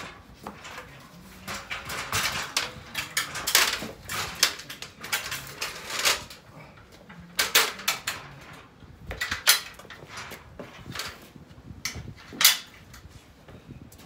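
Aluminium stepladder clanking and rattling as it is moved and set in place, with irregular metal knocks, the loudest near the end.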